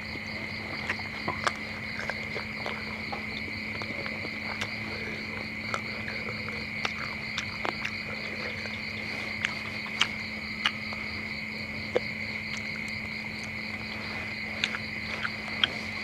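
A steady, high-pitched chorus of crickets chirring at night. Scattered sharp clicks and crunches from eating crispy fried frog close to the microphone stand out above it.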